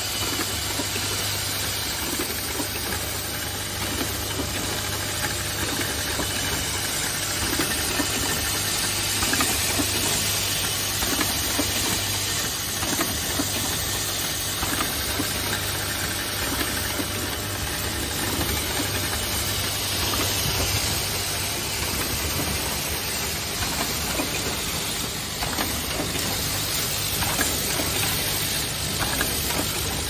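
Automatic pneumatic hinge assembly machine running: a steady hiss of compressed air from its cylinders and valves, with constant fast clicking and clattering of actuators and parts, over a low hum that is stronger in the first part.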